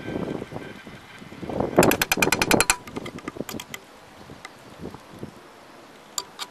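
A metal fork scraping and clicking against a cast-iron skillet as scrambled eggs are stirred, with a quick run of about ten sharp clicks around two seconds in.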